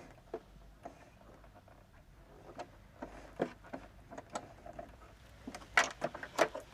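Hands handling a sewing machine and fabric: scattered light clicks and taps, with a cluster of sharper clicks near the end. The machine's motor is not running.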